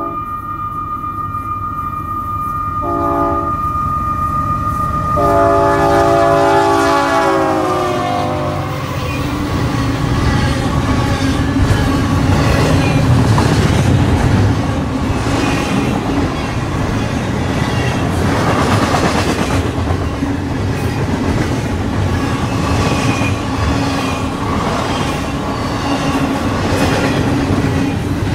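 Union Pacific freight train's diesel locomotives passing close by, sounding a multi-chime air horn: a long blast, a short one about three seconds in, then another long blast whose pitch drops as the lead engine goes by. After that, the rumble and clickety-clack of double-stack container cars rolling past.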